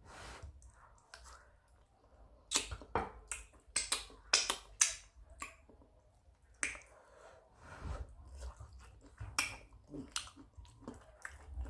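A person chewing food close to the microphone, with irregular wet mouth clicks and lip smacks in clusters.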